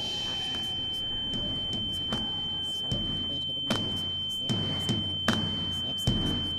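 A steady, high-pitched pure tone rings on unbroken. Deep thuds enter about two seconds in, keep an even beat of a little more than one a second, and grow louder toward the end.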